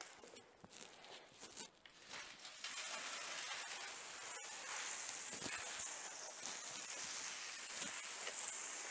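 A few light handling knocks, then about three seconds in a garden hose spray nozzle opens up: a steady hiss of water jetting onto a motorcycle and a wet concrete floor, rinsing off cleaner.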